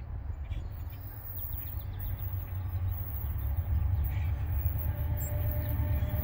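Low rumble of an approaching diesel-hauled freight train, growing steadily louder, with faint bird chirps. A faint steady tone comes in near the end.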